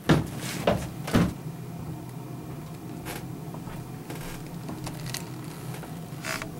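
Three sharp knocks or thuds in the first second or so, then a steady low hum with a few faint ticks every second or so.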